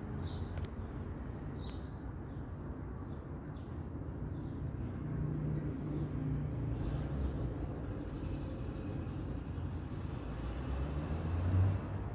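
Street ambience: a steady low rumble of passing traffic that swells in the middle and peaks briefly near the end, with a few faint short high chirps in the first few seconds.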